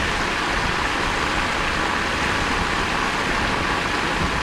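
Steady rushing of water jetting from a pipe across the floor of a drained pool, an even hiss without pause.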